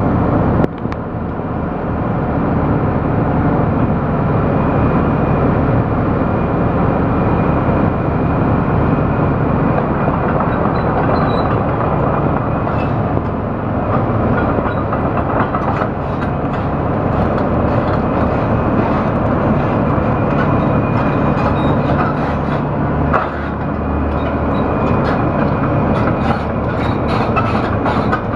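Liebherr R974 C crawler excavator's diesel engine running steadily while its steel tracks clatter as the machine travels. The clatter grows denser in the second half.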